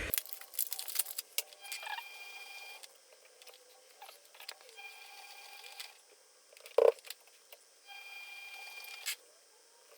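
Light clicks and taps of an adhesive plastic child safety lock being handled and fitted. Three short steady tones about three seconds apart, and one brief louder sound about two-thirds of the way through.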